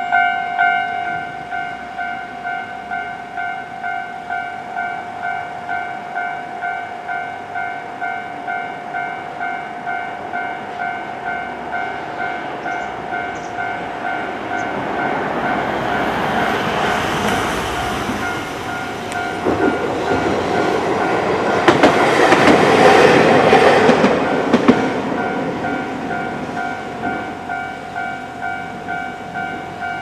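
Japanese level-crossing warning bell ringing steadily, about two strokes a second, while a Hankai Tramway streetcar rolls across the crossing. The tram's running noise builds and is loudest about two-thirds of the way through, with a few sharp wheel clacks over the rail joints. The bell stops at the very end as the crossing clears.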